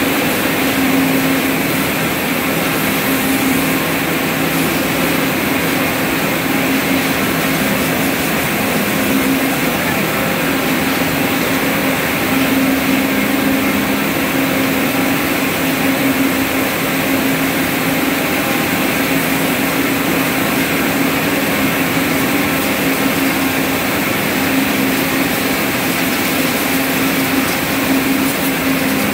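Steady, loud whir and hum of spinning-mill machinery in a ring-frame hall, including ring spinning frames and a spindle-oil changing unit running. A constant hum runs beneath, swelling and fading slightly every few seconds.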